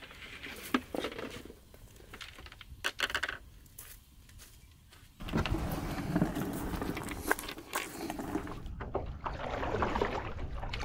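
Kayak launch and paddling sounds: scattered knocks and clicks of gear and the wheeled cart, then a louder stretch with splashing water and paddle strokes on the water near the end.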